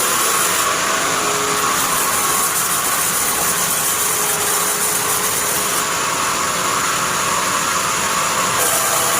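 Sawmill bandsaw machine running, a steady, unbroken mechanical noise.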